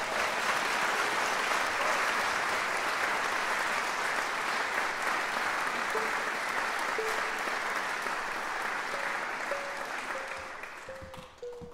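Audience applauding, tapering off near the end. From about halfway through, a few single plucked notes sound under it as a banjo string is tuned.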